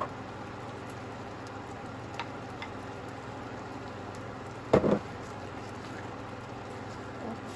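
Creamy gnocchi sauce simmering and sizzling steadily in a frying pan. There are a few light clicks, and about five seconds in a louder clatter as a wooden spoon scrapes gnocchi from a bowl into the pan.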